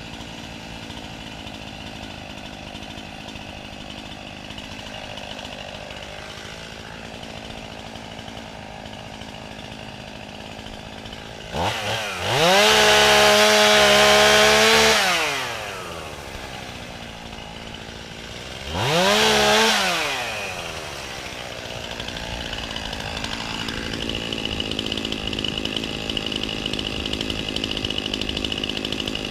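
Chainsaw engine idling, then revved hard to full throttle twice, a long blip of about three seconds and a shorter one, each dropping back to idle. Near the end it runs steadily at a higher, louder level.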